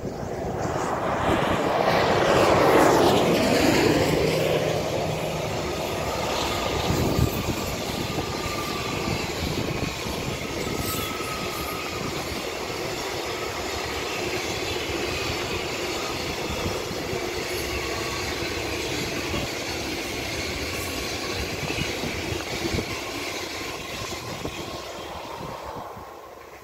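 A freight train of covered hopper wagons hauled by an electric locomotive passing close by. The locomotive's sound falls in pitch as it goes past about three seconds in, the loudest moment. Then the wagons roll by with a steady rumble and clatter of wheels on rail, fading near the end.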